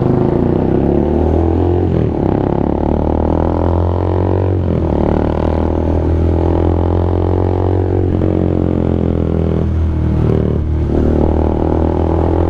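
Motorcycle engine running at steady revs, a loud even drone with its pitch dipping briefly a few times as the throttle eases.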